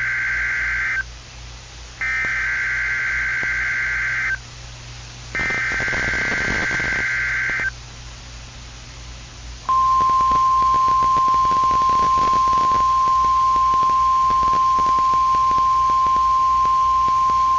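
Emergency Alert System SAME header on NOAA Weather Radio: three bursts of warbling digital data tones, each about two seconds long with about a second between them, the first already under way. About ten seconds in, the station's 1050 Hz warning alarm tone starts, one steady pitch with faint static crackle beneath it. Together they signal the start of an alert, here a severe thunderstorm watch.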